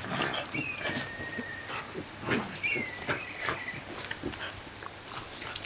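Shiba Inu dogs play-fighting: short grunts and two high whines that slide down and then hold, with scuffing and clicking of paws on pavement.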